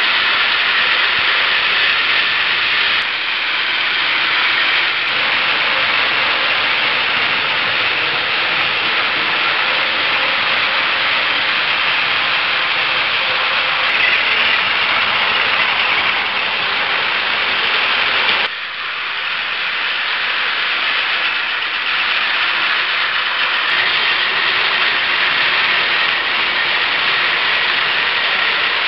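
Many Plarail battery-powered toy trains running at once on plastic track: a dense, steady whir and rattle of small motors and wheels. The mix changes abruptly about 3 seconds in and again about 18 seconds in.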